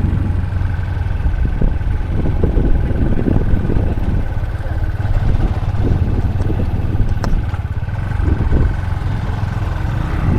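Motorcycle being ridden: a steady low engine and wind rumble on the microphone, with a faint steady high-pitched whine throughout.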